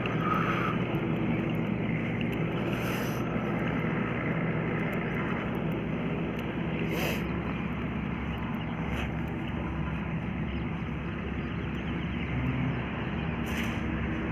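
Tractor engine running steadily at a constant pitch, with a few brief faint clicks over it.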